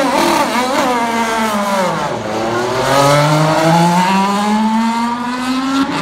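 IndyCar's 2.2-litre twin-turbo V6 engine running. Its pitch wavers up and down for the first two seconds, drops sharply about two seconds in, then climbs steadily as the car accelerates.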